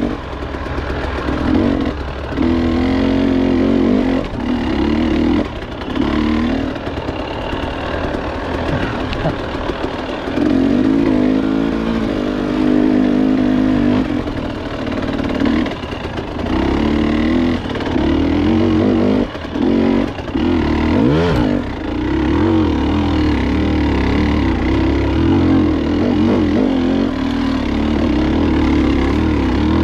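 KTM 300 XC two-stroke single-cylinder engine revving up and down as the throttle is worked, dropping off briefly again and again as the throttle is rolled off, with one quick rise in revs about two-thirds of the way through.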